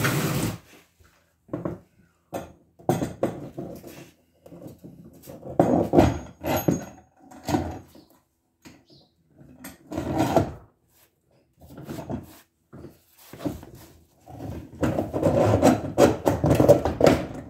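Knocks, clatter and scraping of a homemade PVC-and-threaded-rod kayak cart axle being pushed and worked through the scupper holes of a plastic kayak hull. The sounds come in irregular bursts, and the longest and loudest run comes near the end.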